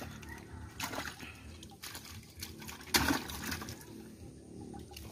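Wet mesh net full of live fish being handled: water trickling and sloshing, with a few brief sharp knocks, the loudest about three seconds in.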